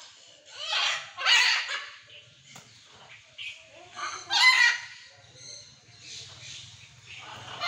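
Macaws squawking: two loud calls, about a second in and about four seconds in, with fainter calls between them.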